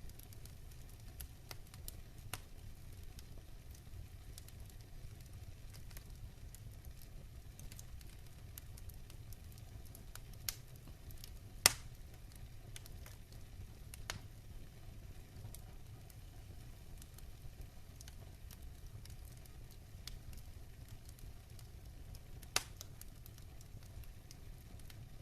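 Wood fire burning in a fire pit: a steady low rumble of flame with constant small crackles, a few louder pops, and one sharp loud pop about halfway through.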